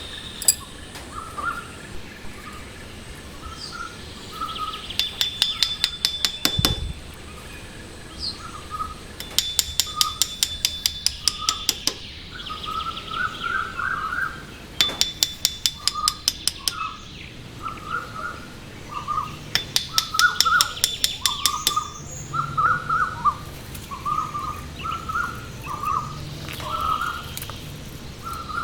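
Birds chirping: many short chirps throughout, broken every few seconds by a fast, even trill that lasts about two seconds.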